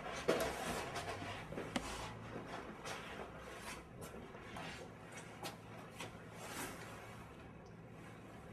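Irregular light knocks, clicks and rustling in a small room, the sharpest click near the start, fading lower towards the end.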